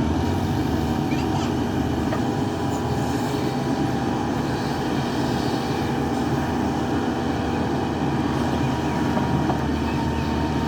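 JCB 3DX backhoe loader's diesel engine running steadily under digging work, with a few faint clicks over the drone.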